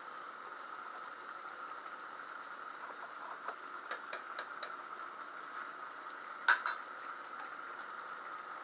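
Pot of rice boiling in biryani cooking liquid, a steady bubbling hiss. A quick run of four small clicks a little after the midpoint and a sharper double click near the end.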